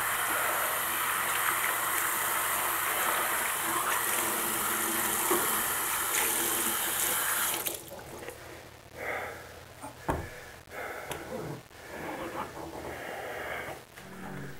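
Water running from a sink faucet in a steady hiss, shut off suddenly about halfway through. After it a few faint short sounds and one thump.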